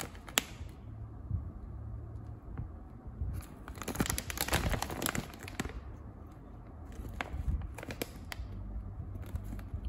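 Shiny plastic snack packet crinkling as it is handled and turned over in the hands. It comes in spells: briefly at the start, a longer stretch in the middle, and a few crackles near the end.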